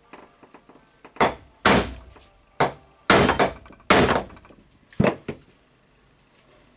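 A hand hammer striking a steel punch to drive a pressed-in part out of a demolition hammer's gear housing: about six sharp, unevenly spaced blows over some four seconds. The part is not giving easily.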